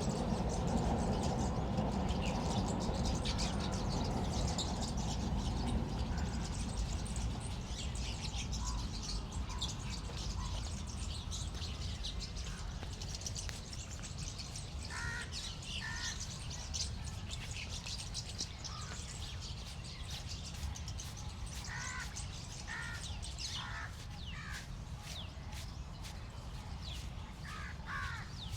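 Crows cawing in short clusters of calls, more often in the second half, over a steady low background rumble.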